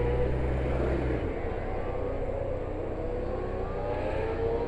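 Motorcycle engine running at low speed, heard from on board while riding slowly; its note drifts gently up and down, and a low hum fades about a second in.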